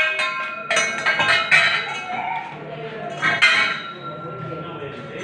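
Stainless steel tubing clinking as it is handled: a few light metallic knocks in the first few seconds, each leaving a clear ring that lingers and fades.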